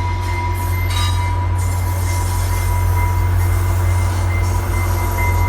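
Caltrain commuter train rolling slowly into the station: a steady low rumble with a thin, steady high-pitched wheel squeal over it.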